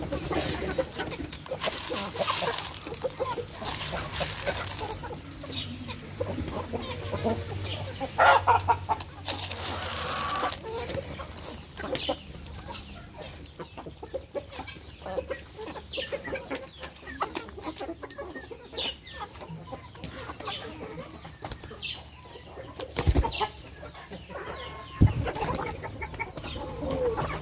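A flock of chickens clucking steadily while feeding, over a busy patter of small taps as they peck grain off hard dirt ground. Louder calls burst out about eight seconds in, and two sharp knocks come near the end.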